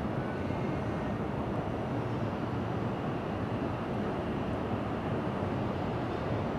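Shinkansen train running past on the elevated track: a steady rushing noise of wheels and running gear, with no distinct knocks.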